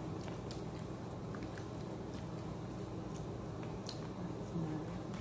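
Two people eating: quiet chewing with a few faint clicks of forks against plates, over a steady low hum.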